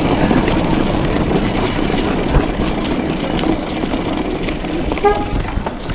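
Bicycle rolling over a cobblestone street: a continuous rough rumble and rattle from the tyres and frame jolting on the stones.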